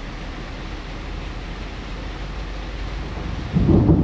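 Steady hiss of rain and wind in a thunderstorm, then about three and a half seconds in a loud thunderclap breaks out and starts to rumble.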